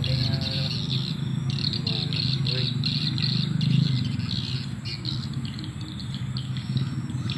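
Swiftlets chirping in rapid, repeated high twitters around a swiftlet house, over a steady low hum.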